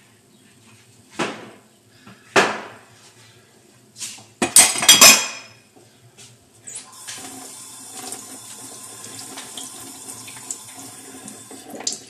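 A couple of knocks and then a loud clatter of dishes, followed by a kitchen tap running into a sink for about five seconds, shut off near the end.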